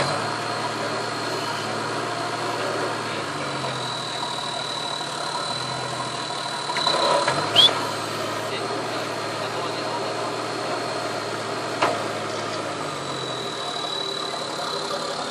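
Toyota Land Cruiser 80 series' turbocharged 1HZ diesel engine running at low revs, rising and falling a little as the truck crawls through a deep rut. A short sharp click sounds about halfway through, and another a few seconds later.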